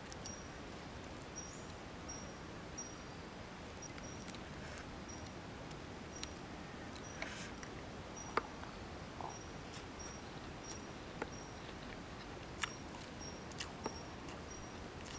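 Crisp crunching clicks of lettuce-wrapped grilled fish being bitten and chewed, the loudest about eight seconds in, over a short high insect chirp repeating about twice a second.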